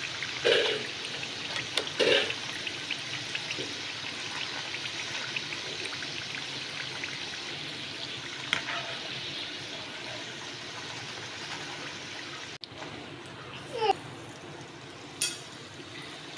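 Ragi biscuit pieces deep-frying in hot oil: a steady, fairly quiet sizzle with light crackling and a few knocks. The sizzle has settled down, which the cook takes as the sign that the biscuits are fried through and ready to lift out.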